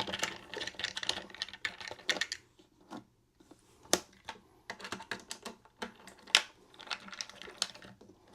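Hard plastic parts of a toilet seat clicking and rattling as it is worked loose for removal: a fast run of small clicks, a short lull, then scattered sharp clicks and knocks, the loudest about six seconds in.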